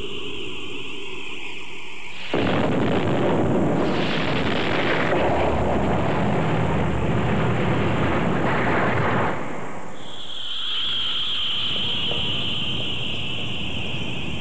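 Loud roar of a blast that starts suddenly about two seconds in and cuts off abruptly about seven seconds later. A steady high tone comes before and after it.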